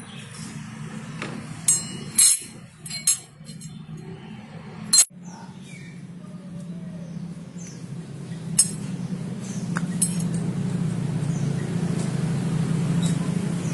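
Metal motorcycle clutch parts and tools clinking: about half a dozen sharp metallic knocks, the loudest about five seconds in, over a steady low hum.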